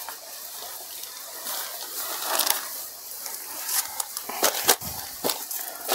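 Silk sarees rustling and swishing as they are folded, lifted and moved by hand, with a few sharp crisp crackles of the cloth in the second half.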